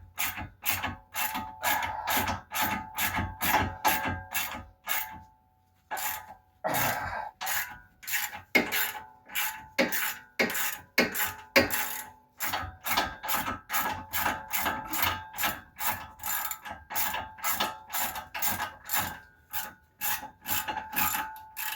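Hand ratchet wrench clicking in regular strokes, about two to three a second, while it works out a brake caliper bracket bolt. It pauses briefly about five seconds in, then goes on.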